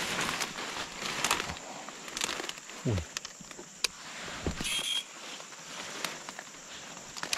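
Leafy vines and undergrowth rustling and crackling as they are pushed through and trodden on, with scattered twig snaps.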